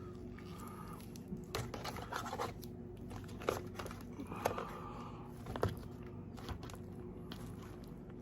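Close-miked eating and wrapper handling: a handful of sharp wet clicks and crinkling paper over a steady low hum.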